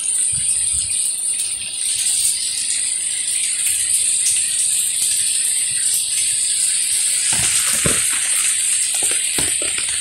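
Rain falling on a garden at night, a steady hiss with a loud, constant high-pitched trill over it. From about seven seconds in there is a series of soft low knocks.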